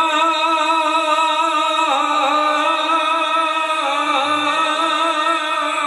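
A man singing long, wavering held notes in a Gujarati folk song, to a harmonium. His line bends down to a lower note about two seconds in and again near four seconds.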